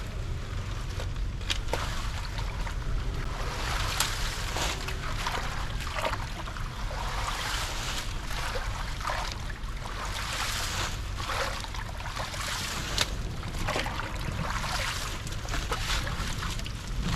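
Water sloshing and trickling at a clogged, flooded culvert drain, with many short splashes over a low steady rumble.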